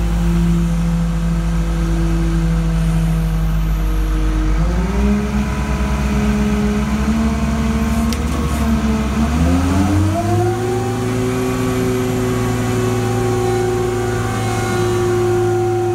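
Crane engine running and speeding up in two steps, about four and a half and ten seconds in, then holding at the higher speed while the crane hoists a heavy precast concrete load.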